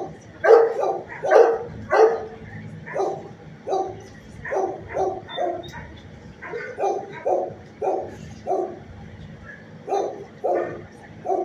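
Dog barking over and over, about two barks a second, with a short pause in the latter part.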